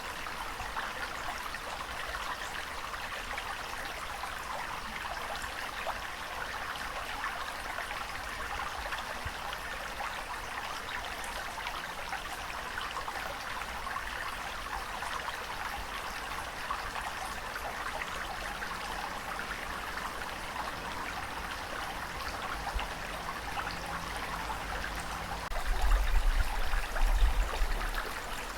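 Steady rushing and trickling water, even throughout, with a low rumble that swells louder near the end.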